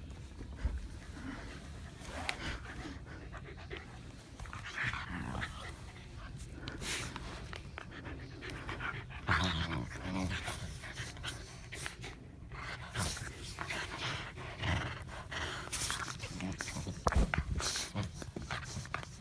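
Two Shetland sheepdogs playing together: panting and scuffling, with many short sharp noises throughout.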